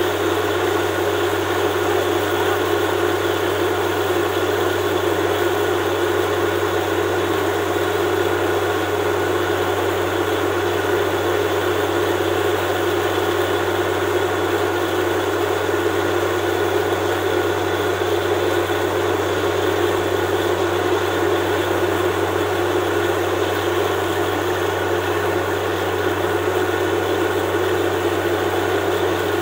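Borewell drilling rig running: a loud, steady machine drone with a low hum and a higher hum that hold unchanged throughout.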